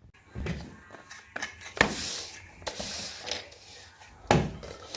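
Irregular scraping and rubbing as a dirty guinea pig cage is cleaned out, with a sharper knock about two seconds in and another a little after four seconds.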